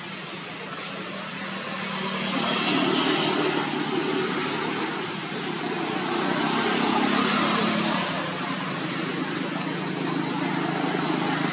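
A steady low engine hum under a broad rushing noise that swells and fades twice.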